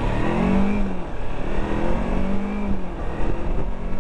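Kawasaki Versys-X 300's parallel-twin engine accelerating, its note rising and then dropping about a second in and again near three seconds in as it is shifted up through the gears, over a steady rush of wind.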